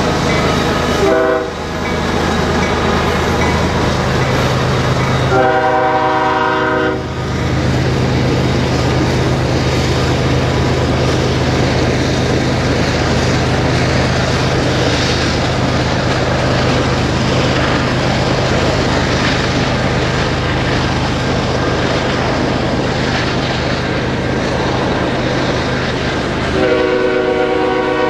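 Canadian Pacific diesel freight locomotives passing with engines running under the rumble of the train, and the multi-note air horn sounding: a short blast about a second in, a longer one around six seconds in, and another near the end.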